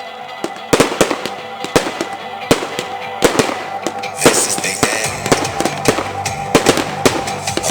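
New Year's fireworks going off: a rapid, irregular series of sharp bangs, joined about four seconds in by dense high crackling, with music playing.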